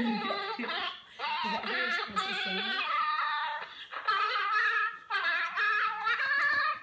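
Small dog howling in a run of long, wavering high cries with short breaks between them.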